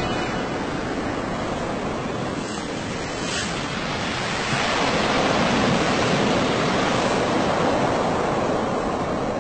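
Stormy sea: a steady rush of breaking waves and wind, swelling louder about halfway through.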